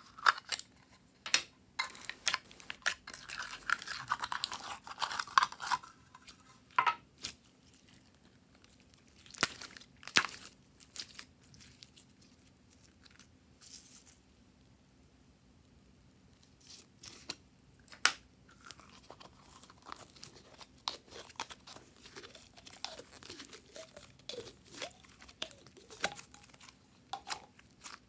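Plastic slime container opened and handled by hand: sharp clicks and a dense crackle in the first few seconds, a few more clicks a little later. Through the second half, blue slime squeezed and worked by hand, giving many small scattered popping clicks.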